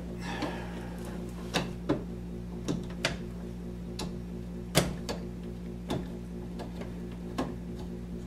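Irregular sharp clicks and light metal taps, about a dozen, as wires are pushed into a 50 A two-pole circuit breaker's terminals and its set screws are tightened with a screwdriver. A brief scrape comes about half a second in, and the loudest click just before five seconds.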